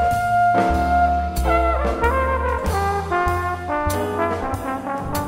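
Small jazz combo playing a slow ballad instrumental passage: a horn carries a moving melody over double bass and piano, after a long held note that ends about half a second in.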